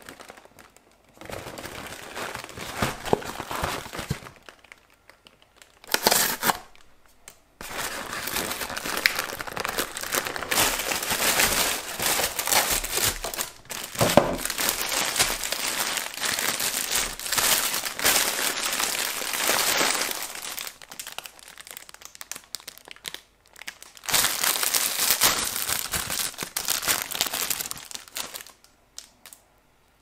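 Cardboard snack box torn open and the thin clear plastic wrappers of individually wrapped cinnamon rolls crinkling and tearing as they are handled and unwrapped, in several long stretches with short pauses.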